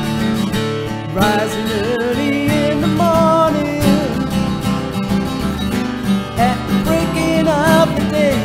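Acoustic guitar strummed steadily, with a bending, wavering melody line played over it from about a second in.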